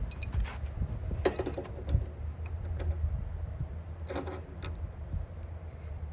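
Scattered metal clicks and knocks as a tight water-intake fitting is worked loose from a pressure washer's pump, over a low steady hum.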